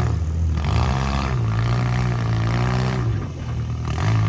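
Demolition-derby van engine revving hard, its pitch rising and falling and held high for about a second and a half in the middle.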